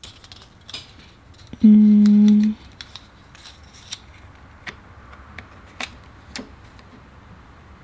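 Light clicks, taps and crinkles of a glass screen protector and its plastic film being handled and peeled in a plastic alignment frame on a phone. About two seconds in there is a short, loud, steady hum held for under a second.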